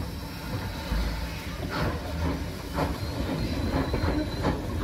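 Small narrow-gauge steam locomotive hauling a wagon at low speed: about four slow exhaust chuffs, roughly one a second, over a steady hiss of steam.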